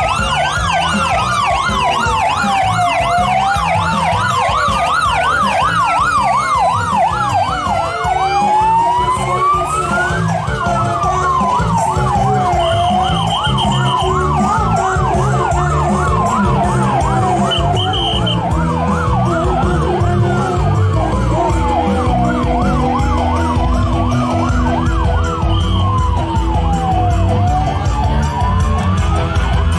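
Police motorcycle sirens: a slow wail rising and falling about every five seconds, with a faster yelp sweeping up and down several times a second over it, above a steady low rumble.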